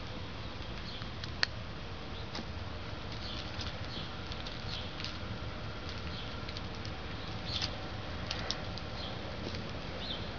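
Scattered short crackles and rustles of dry bark mulch and leaves under a Sphynx cat's paws and nose as it walks and sniffs through them, with a sharper click about one and a half seconds in.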